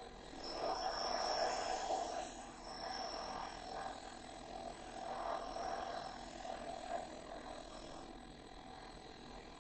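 Power grinder grinding a steel rivet-set tool, cleaning up its uneven tip: a rough grinding sound with a thin high whine, swelling and fading in passes every second or two, over steady fan noise.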